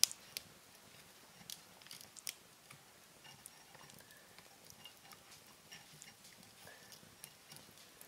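Wood fire in an irori hearth crackling, with scattered sharp pops over a faint hiss, the loudest pop right at the start.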